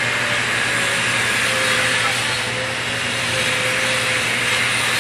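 A power tool's motor running steadily, with a faint wavering whine over a constant hiss and hum.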